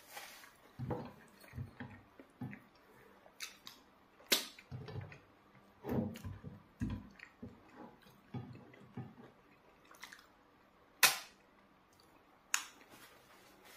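Close-up eating sounds: a person chewing and swallowing eba and soup eaten by hand, with a series of sharp wet smacks, the loudest about eleven seconds in.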